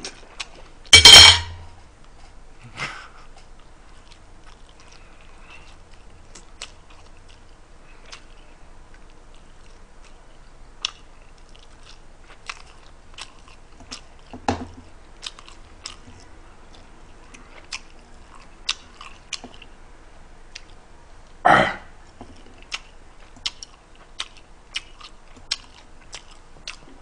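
Close-miked chewing of a mouthful of food, with many small sharp mouth clicks and smacks. A short, loud noise breaks in about a second in, and another comes around twenty-one seconds in.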